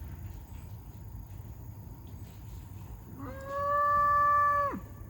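Cattle bawling: one long, steady-pitched call of about a second and a half, starting about three seconds in and dropping sharply in pitch as it cuts off.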